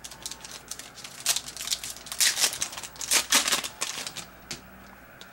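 Trading cards being handled and slid against one another: a run of quick rustling, scraping strokes, busiest from about one to four seconds in, then settling.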